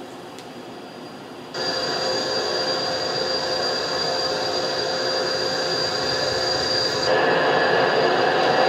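Jet engines of an F/A-18 running steadily on the flight line: a constant high whine over a rushing noise. It starts abruptly about a second and a half in and steps louder near the end.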